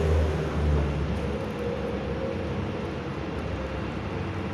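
Low rumble of a car engine at low speed on a city street, strongest in the first second and a half and then easing off, with a faint steady hum.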